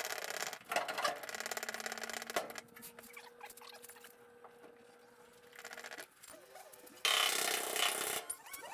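Hand-pumped hydraulic body jack being worked against the rear sheet metal of a 1955 VW panel van to push out a crease: a run of rapid fine clicking, quieter for a few seconds in the middle, then a louder rush of noise about seven seconds in.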